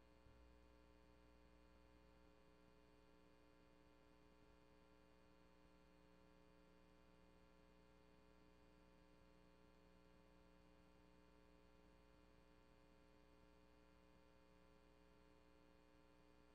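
Near silence: only a faint, steady electrical hum, with no audible activity from the room.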